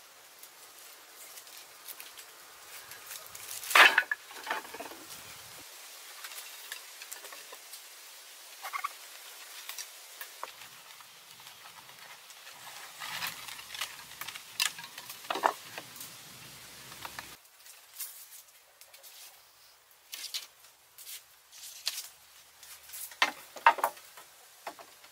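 Wooden sticks and poles knocking and clattering as they are handled and laid across a pole frame, with rustling between. The loudest knock comes about four seconds in, with a few more sharp knocks near the end.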